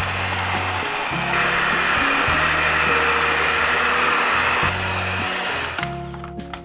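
Electric hand mixer with dough hooks running as it works flour and eggs into a batter. It gets louder for a few seconds in the middle and stops shortly before the end. Background music plays under it.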